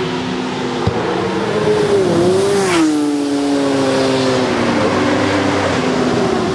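Road-racing motorcycle engines running hard at high revs. Just after two seconds in, the pitch dips and rises. About three seconds in it falls away as a machine goes past.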